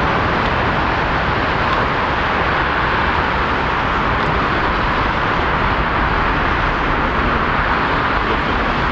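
Steady rushing jet engine noise from a Boeing 747-400 freighter rolling out on the runway after landing, holding level with no distinct tones or knocks.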